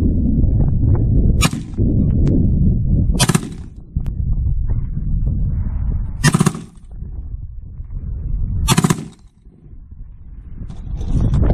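A 7.62x51mm HK91 rifle converted to an HK21-pattern belt-fed machine gun firing four brief, sharp reports, spaced about two to three seconds apart. A steady low rumble runs underneath.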